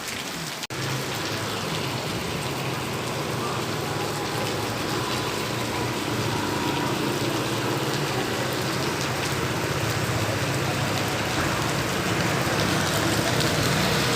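Heavy rain pouring steadily during a tropical storm, with a low steady hum underneath. The rain grows slowly louder.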